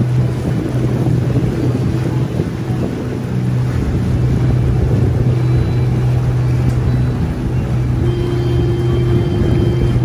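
A river boat's motor running steadily while cruising, a constant low hum over water and wind noise. A higher steady hum joins near the end.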